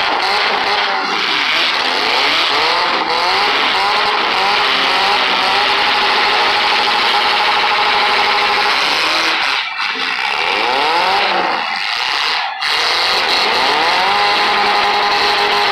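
Several demolition-derby cars' engines revving hard and dropping back, overlapping in a loud, continuous din of rising and falling pitches, with a couple of brief dips.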